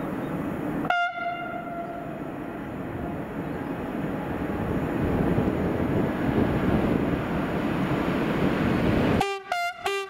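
Newag Dragon 2 electric freight locomotive sounding its horn: one short blast about a second in, then several quick toots on two notes near the end. Under the horn is the steady rumble of the approaching train, growing slightly louder.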